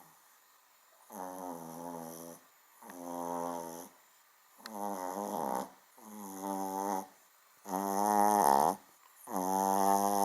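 Small dog snoring: six pitched snores, each about a second long, coming roughly every one and a half seconds and growing louder toward the end.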